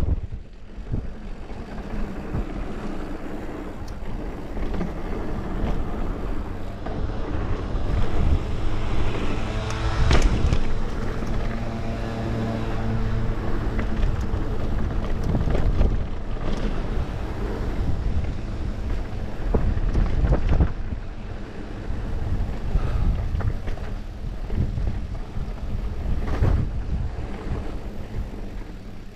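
Wind rushing over the camera microphone on a fast mountain-bike descent, with the tyres rumbling on a dirt trail and frequent knocks from the bike as it goes over bumps. A short buzzing tone comes in around ten to fourteen seconds in.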